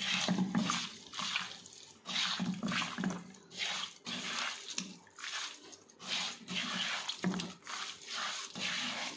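A hand squishing and turning raw beef pieces coated in coconut oil and spice powders in a pot, in repeated wet strokes about one to two a second.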